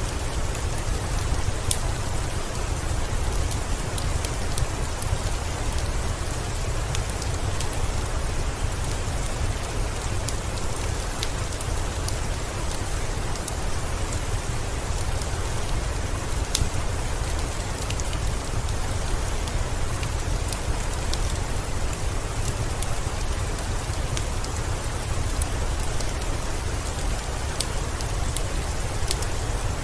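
Steady heavy rain with a deep low rumble underneath, mixed with a fireplace crackling in scattered sharp pops.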